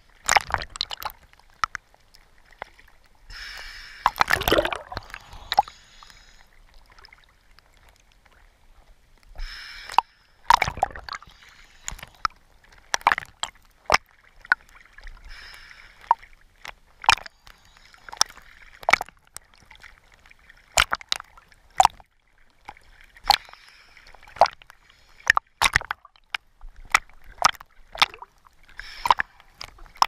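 Small sea waves sloshing and slapping against a camera floating at the waterline: irregular sharp splashes and slaps, with longer hissing splashes about four seconds in and again around ten seconds.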